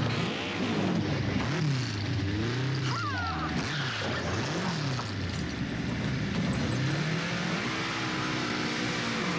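Yamaha XJ650 Turbo motorcycle engine revving hard, its pitch climbing and dropping again and again through the throttle and gear changes, with a brief high squeal about three seconds in.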